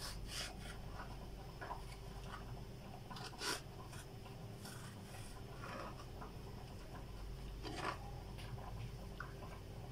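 Kitchen knife slicing cucumber lengthwise on a plastic cutting board: faint, scattered scrapes and soft taps of the blade, with a slightly louder knock about three and a half seconds in and another near the end. A steady low hum runs underneath.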